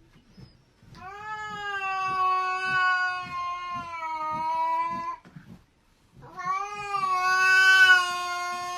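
A cat yowling: two long, drawn-out calls of about four seconds each, held at a nearly steady pitch, with a short pause between them.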